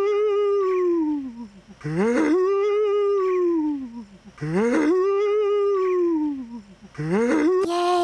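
A cartoon elephant's trumpeting call, looped in an edit. The same call repeats about every two and a half seconds, each one a sharp rise and then a long held tone that slowly falls away.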